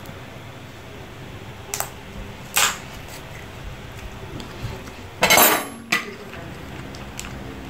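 Cooked lobster shell being cracked and pulled apart by hand over a plate, with shell and cutlery clicking against the plate. There are a couple of short clicks around two seconds in, then a longer, louder crackle a little after five seconds.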